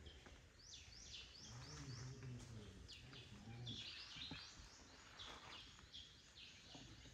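Faint bird calls in the surrounding forest: short high chirps that sweep in pitch, repeated two or three times a second in a steady run.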